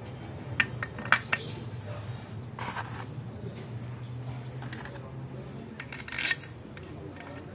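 Metal engine parts clinking as main bearing caps are handled and fitted over the crankshaft in the open block of a Daewoo Damas engine: a few sharp clinks in the first second and a half, a short scraping rustle around three seconds in, and a quick run of clinks near six seconds, over a steady low hum.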